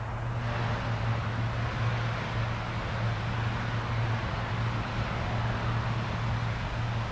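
Pilatus PC-12's Pratt & Whitney PT6A turboprop running up to takeoff power on its takeoff roll: a broad rushing roar that steps up about half a second in, over a steady low propeller drone.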